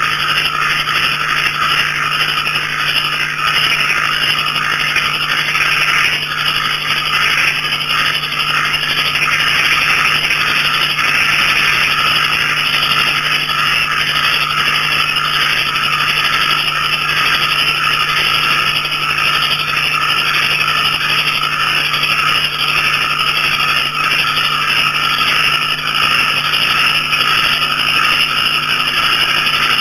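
Dense, steady night chorus of small frogs and crickets calling together, many calls overlapping into one continuous sound.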